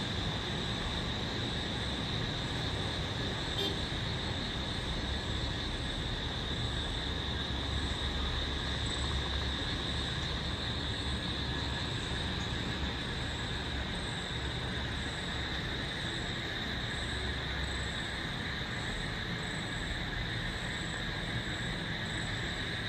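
Night ambience: a steady, high-pitched chorus of night insects with a faint chirp repeating regularly, over a low rumble of distant road traffic.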